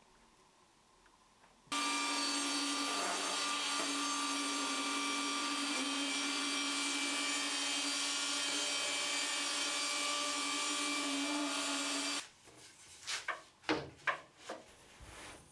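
Mafell Erika table saw running steadily for about ten seconds, cutting thin wooden spacers, with a constant hum under the blade noise; it starts and stops abruptly. A few sharp knocks of wood being handled follow near the end.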